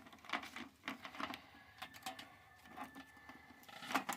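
Ratchet strap being taken off: irregular faint metal clicks and rattles of the ratchet buckle and hooks.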